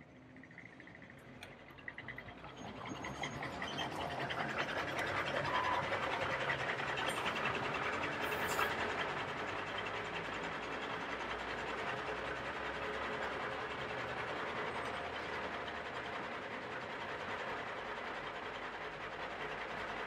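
Hard plastic wheels of a Bruder toy truck and multi-axle low-loader trailer rolling over rough pavement: a steady gritty rolling noise made of many fine clicks, building over the first few seconds.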